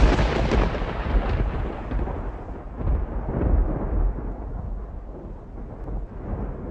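A thunder-like cinematic boom used as a title-logo sound effect. It is loud at first, then rolls on as a deep rumble that swells again about three seconds in and slowly dies away.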